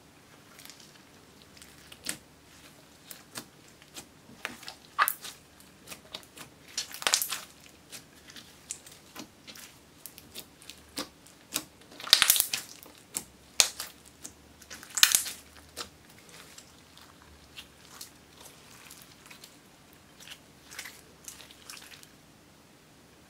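Hands squeezing, stretching and folding a glossy glitter slime: irregular wet clicks and crackles, with a few louder bursts of popping around the middle.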